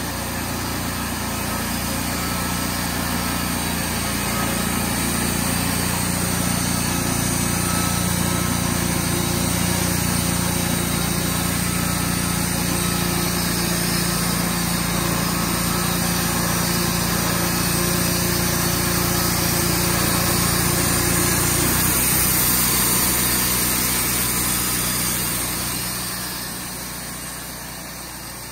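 A small engine-driven machine running steadily at high speed; its pitch shifts about twenty seconds in, and it fades out near the end.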